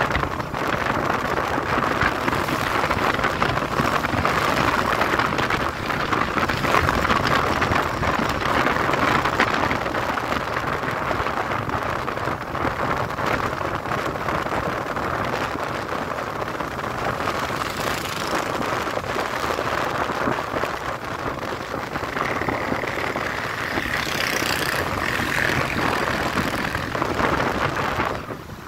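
Wind rushing over the microphone with engine and road noise from a moving motorcycle, a loud steady rush. A brief higher whine joins in near the end.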